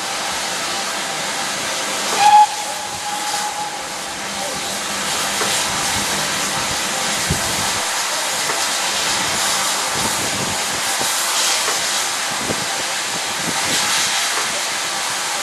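Steam locomotive whistle giving one short toot about two seconds in, over a steady hiss.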